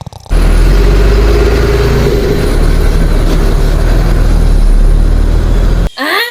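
A loud, steady engine running with a deep rumble. Near the end it cuts off abruptly and a short rising tone sweeps upward.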